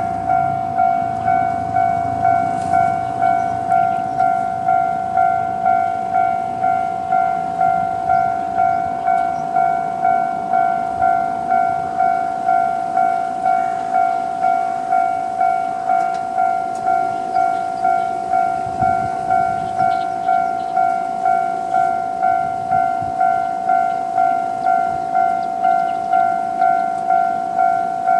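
Japanese level-crossing electronic alarm bell sounding its standard tone, a steady repeated 'kan-kan' strike at about one and a half strikes a second. A low rumble comes and goes beneath it, from the YR-880 diesel railcar passing over the crossing.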